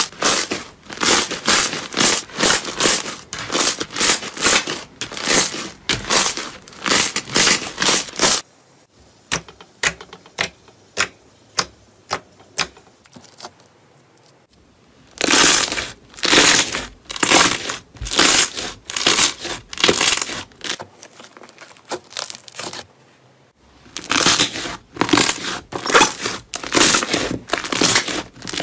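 A run of short slime-and-soap ASMR clips: crackly, crunchy strokes come several times a second as the material is pressed, squeezed or cut. The sound changes abruptly where one clip cuts to the next, about a third of the way in and again near the end. A stretch of sparser single crisp clicks sits between the dense runs.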